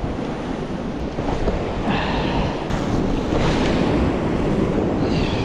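Rough ocean surf washing against rock ledges, with wind rumbling on the microphone.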